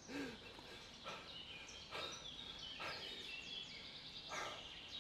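Songbirds singing in woodland: many short, quick whistled phrases overlapping, with several brief rushes of noise about a second apart.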